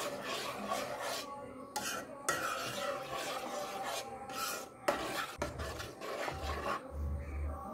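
Metal spoon stirring and scraping around a saucepan of thick, sticky cornflour halwa, a steady rasping with a few clicks of the spoon on the pan. The mixture is being stirred constantly so it does not stick to the pan as it thickens, and a few dull knocks come near the end.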